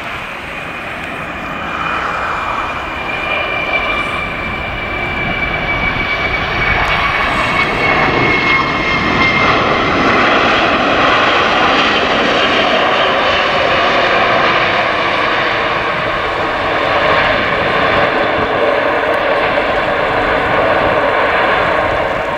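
McDonnell Douglas DC-10-30's three General Electric CF6-50 turbofans running loud as the jet touches down and rolls out. A high whine glides slowly down in pitch over the first several seconds, and the engine noise grows louder toward the middle and stays loud.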